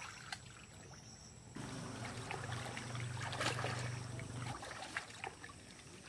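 Water swishing and splashing as a person wades through knee-deep floodwater. From about one and a half to four and a half seconds in, a low steady hum runs underneath.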